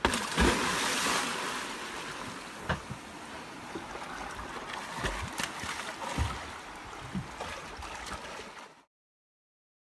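A big splash as a person wearing swim fins drops into the sea, followed by lighter splashing and sloshing water as he swims off kicking. The sound cuts off suddenly near the end.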